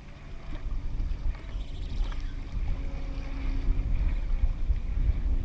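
Wind buffeting the microphone on a kayak at sea, a heavy, uneven rumble. A faint steady hum joins about halfway through.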